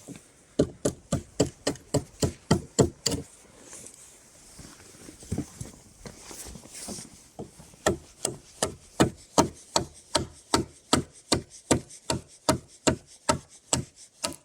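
Quick repeated strikes of a tool cutting into a wooden pole to carve a V-notch: a fast run of blows at the start, a pause, then a steady run of about two or three blows a second from about halfway on.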